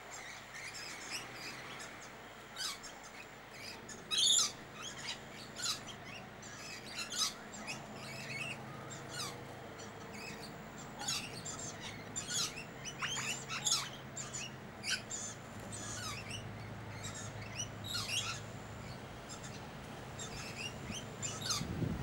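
Noisy miners calling: many short, sharp chirps, with a few falling whistled notes about thirteen seconds in.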